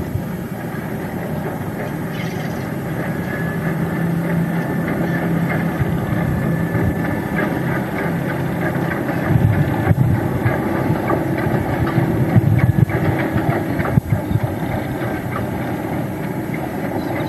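Diesel-hydraulic locomotive NB30 running under power as it hauls a short train, with a steady engine note and a few brief knocks.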